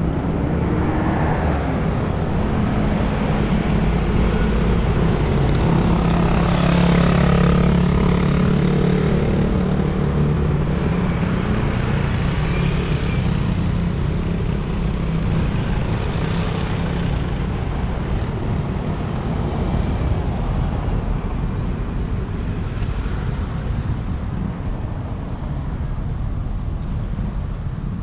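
Road traffic: a motor vehicle's engine hum builds and passes, loudest about seven seconds in, then fades into steady road noise.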